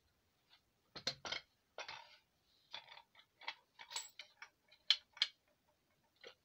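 Irregular metallic clicks and knocks from the parts of a homemade pipe-fitting mini lathe being handled. The loudest are a pair about a second in and two sharp ones around five seconds, with lighter ticks between.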